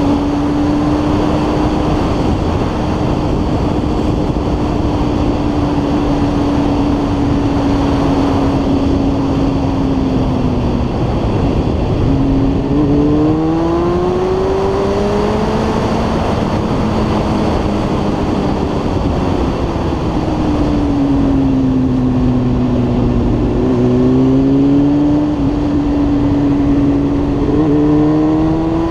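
Motorcycle engine running under way with steady wind rush over the onboard microphone. The engine note holds steady for about ten seconds, then climbs and falls several times as the throttle opens and closes through the bends.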